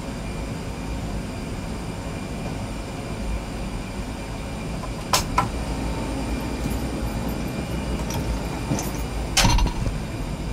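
Steady low rumble and hiss of aircraft and ramp machinery around an Airbus A320 parked at the gate. A pair of sharp clicks comes about halfway through, and a louder knock near the end.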